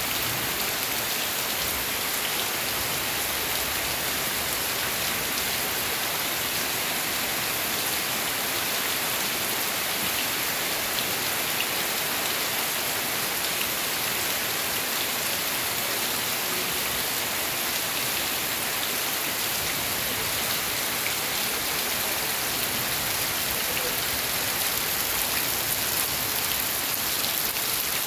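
Heavy tropical rain falling steadily on grass and wet dirt ground: an even, unbroken hiss with a few faint close drop ticks.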